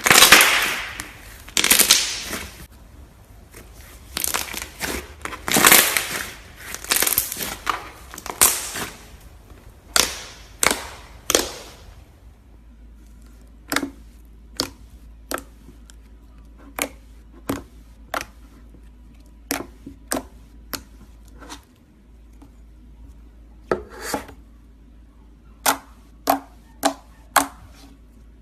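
Slime being worked by hand: about twelve seconds of repeated crunching, squishing noises, then a run of sharp separate pops or clicks, roughly one a second.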